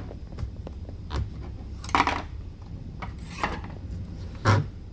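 Handling noise: a handful of short scrapes and knocks as a power cord and clip-on meter test leads are moved about, the loudest about two seconds in and another near the end.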